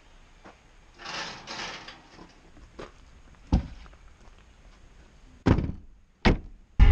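An SUV's rear door swung shut with two heavy thumps near the end, the second a sharp slam, after a plastic kerosene can is set down with a knock in the cargo area and some handling rustle.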